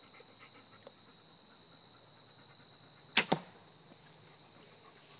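A compound bow shot about three seconds in: two sharp snaps a fraction of a second apart as the string is released. A steady high drone of insects runs underneath.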